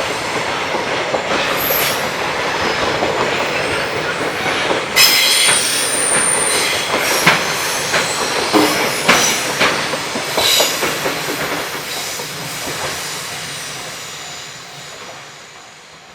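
JR Freight freight train rolling past, its wheels clacking over rail joints, with a brief high wheel squeal about five seconds in. The sound fades away over the last few seconds as the train moves off.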